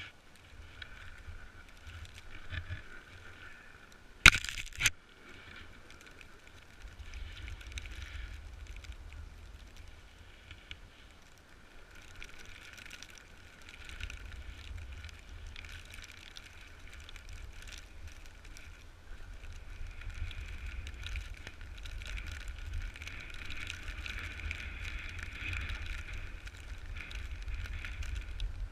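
Snowboard sliding and scraping over snow, with wind rumbling on the microphone, getting louder in the second half. A sharp knock about four seconds in.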